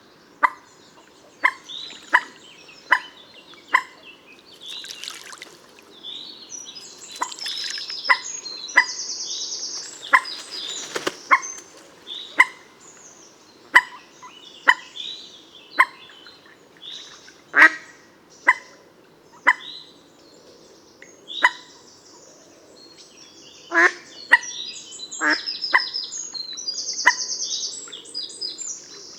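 Common moorhen giving short, sharp calls, repeated about once a second. Fainter high-pitched chirping comes in twice between them.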